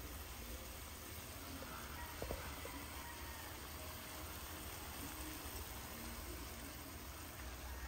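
Faint, steady simmer of chicken escabeche in olive oil and vinegar, cooking in a pot over low heat, with a few small pops.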